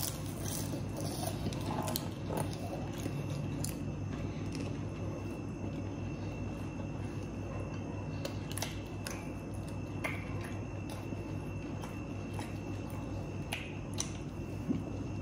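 Close-up chewing and biting of seaweed-wrapped rice rolls, with scattered wet mouth clicks and smacks over a steady low hum.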